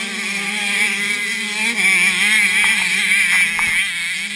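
Small youth motocross bikes' engines revving as they ride past, the pitch rising and falling with throttle and gear changes; loudest from about two to three and a half seconds in.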